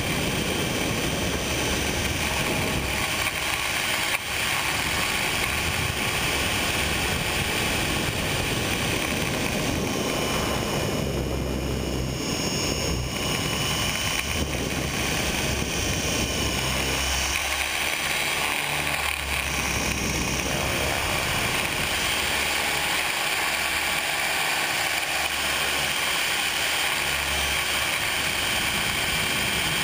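Radio-controlled helicopter in flight, heard from a camera mounted on the helicopter itself: the motor, gears and rotor give a steady whine over a rushing noise. The pitch of the whine shifts around the middle as the helicopter manoeuvres.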